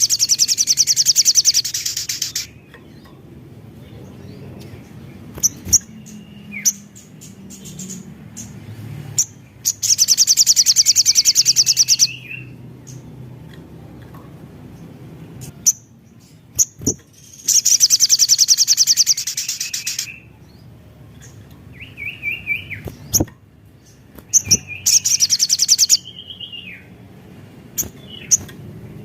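Olive-backed sunbird (sogon/sriganti) singing. Four very high, rapid trills of about two seconds each come several seconds apart, with short sliding chirps and clicks in between.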